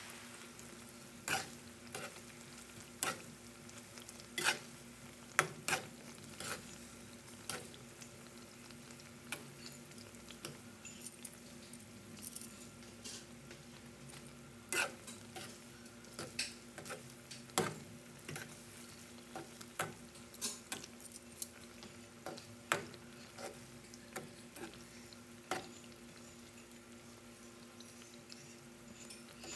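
Saba banana pieces sizzling steadily in hot oil in a metal frying pan, their sugar coating caramelizing. Irregular sharp clicks and scrapes come from a metal slotted spatula against the pan and the bananas as the pieces are turned.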